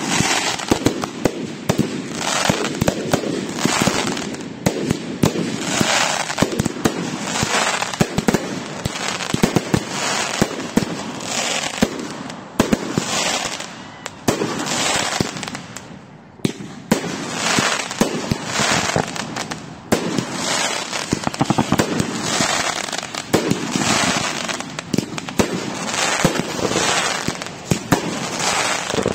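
Fireworks going off nonstop: dense rapid pops and crackling, with noisy hissing bursts every second or two and a short lull about halfway through.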